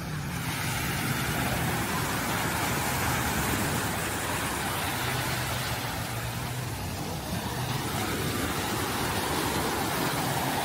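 Sea waves breaking and washing up the shore, a steady rushing that swells and eases.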